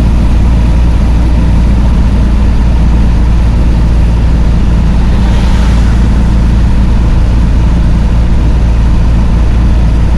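Vehicle engine running steadily at cruise, heard from inside the cab as a low drone with road noise. A brief hiss swells up about five seconds in.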